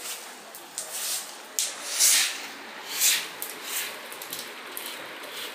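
A broom sweeping wet ground: a string of short, irregular swishes, roughly one every half second to a second, over a faint steady hiss.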